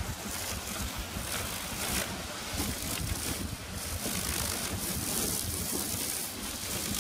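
Strong, gusty wind buffeting the microphone: a continuous rushing with a low rumble that swells and eases with the gusts.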